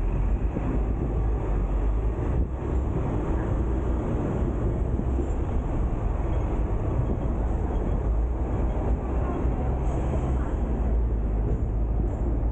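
Hong Kong double-decker electric tram running along street track, a steady low rumble of steel wheels on rail, heard from the upper deck.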